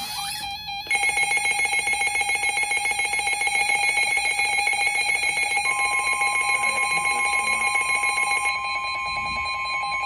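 An EAS/weather-radio alert: a fast-pulsing electronic alarm sounds. Past the halfway point the steady single-pitch 1050 Hz NOAA Weather Radio warning alarm tone joins it, announcing a new severe thunderstorm warning.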